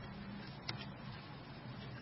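Faint steady low hum with one light click about two-thirds of a second in.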